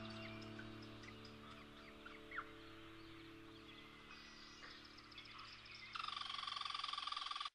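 Quiet tail of background music: several low notes held and slowly fading, with a few faint high chirps. About six seconds in, a brighter, evenly pulsing sound comes in and then cuts off suddenly.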